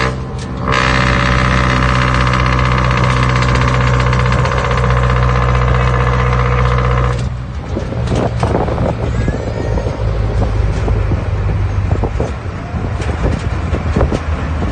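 Isuzu C240 four-cylinder diesel engine running through a four-divider Lamigo muffler, held at steady raised revs with an even, droning exhaust note, then let drop about seven seconds in to a lower, rougher running.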